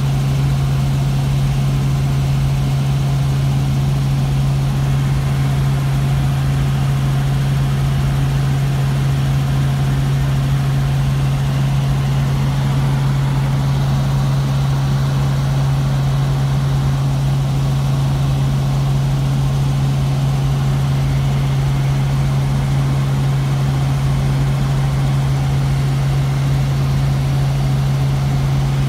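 Helicopter in steady flight, heard from inside the cabin: a loud, constant low hum from engine and rotor, with a steady rushing noise above it.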